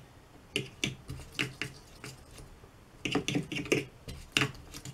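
Watercolour brush tapping and scrubbing in the paint pans of a palette box to pick up green, a string of light clicks that bunch together about three seconds in.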